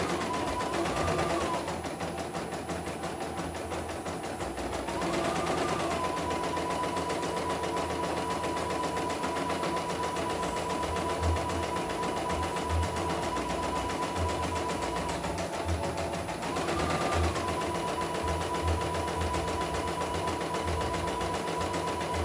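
CNY E900 portable computerised embroidery machine stitching out a design in its hoop: a fast, steady needle chatter over a motor whine. The whine rises briefly in pitch about five seconds in and again near seventeen seconds.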